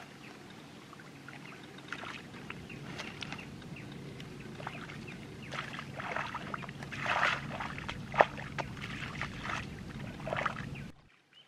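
Irregular small splashes and sloshing in shallow, muddy water, over a steady low hum. The splashing grows busier in the second half, with one sharp splash standing out, then everything cuts off suddenly just before the end.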